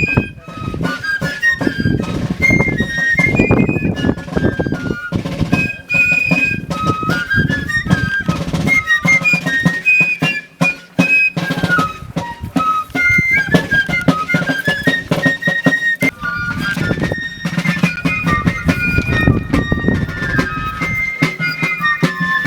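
Fife and drums playing a lively marching tune: a high piping melody of quick notes over a steady run of drumbeats.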